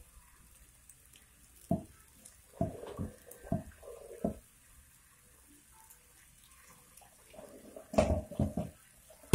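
Metal spoon knocking and scraping against a wok while stirring, in a few short clusters of clatter.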